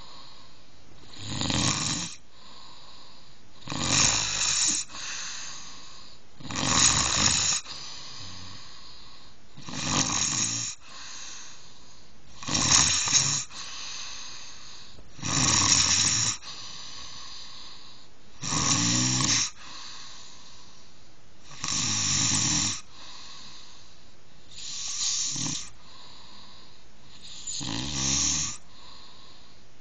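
Snoring: one rough, fluttering snore of about a second roughly every three seconds, ten in all, in a slow even rhythm.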